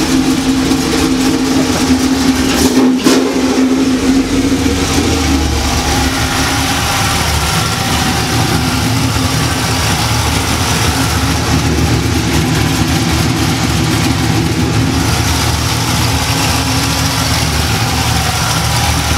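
1998 Pontiac Trans Am's V8 idling steadily, just after an oil change with oil pressure up. A steady hum in the first few seconds fades as a deeper engine rumble grows from about four seconds in, with one brief knock near the start.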